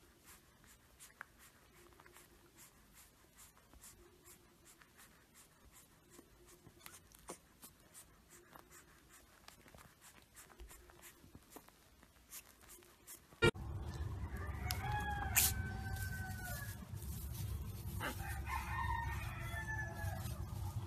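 Faint ticking for the first thirteen seconds, then, after a sharp click, a louder low rumble with two drawn-out animal calls, each falling in pitch and lasting over a second, from a farm-animal pen.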